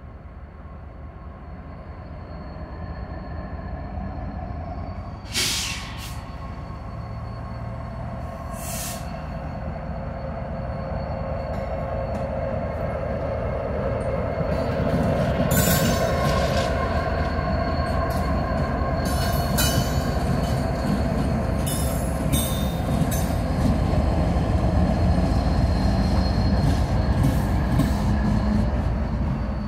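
Norfolk Southern SD70ACe diesel-electric locomotive, with a Union Pacific unit trailing, approaching and passing close by: the engine drone grows steadily louder as it nears. There is a sharp knock about five seconds in, then a run of clicks and knocks as the locomotives go by.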